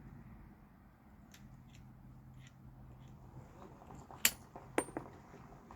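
Light metallic clicks and clacks from handling a New England Firearms break-action single-shot 30-06 rifle just after it was fired. A few faint clicks come first, then three sharper ones about four to five seconds in.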